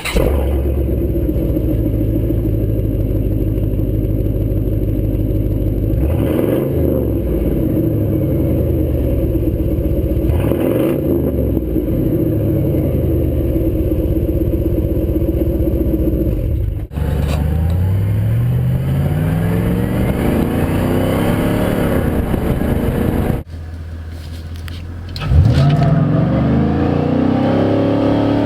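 2004 Chevy Silverado 2500HD's 8.1-litre V8 exhaust, run through a Y-pipe to a 5-inch tip with no mufflers, idling with two short revs. After a break it climbs steadily in pitch as the truck accelerates, and near the end it pulls hard again.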